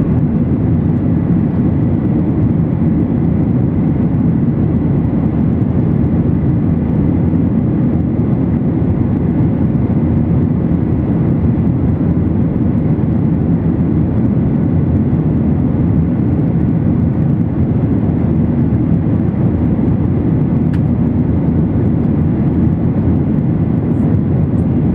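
Steady engine and airflow noise inside the cabin of a Boeing 737-900ER climbing after takeoff, its CFM56-7B turbofans at climb thrust. A dense, even, low rumble with no change in pitch.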